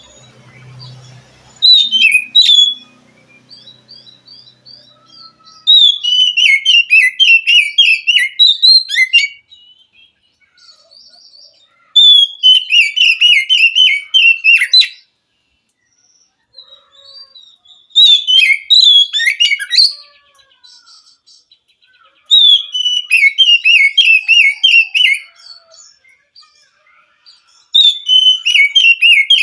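Oriental magpie-robin (kacer) singing: loud bursts of rapid, chattering, whistled notes, each phrase lasting two to three seconds and repeated every few seconds.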